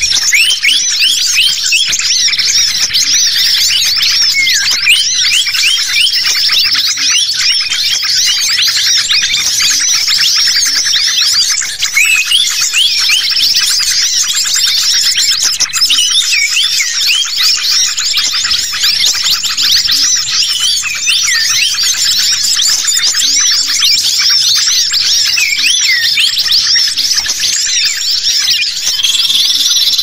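Bird-lure recording of a dense, unbroken chorus of small songbirds' excited chirps and twitters, many quick rising and falling calls overlapping, built on the agitated calls of common ioras mixed with other small birds.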